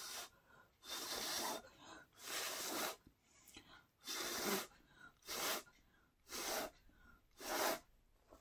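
A person blowing six short, hard puffs of breath by mouth onto wet acrylic paint on a canvas, about one a second, to push the paint around.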